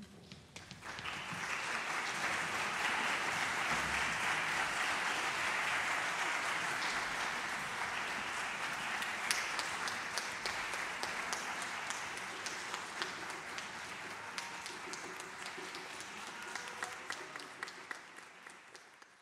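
Audience applauding: the applause swells within the first couple of seconds, holds, then thins to scattered claps and fades away near the end.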